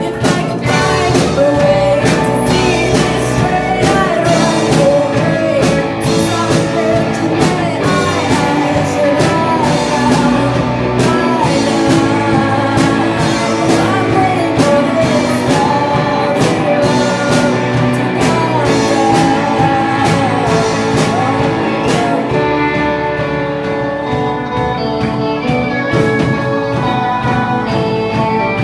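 Rock song with a singer over guitar and a regular beat.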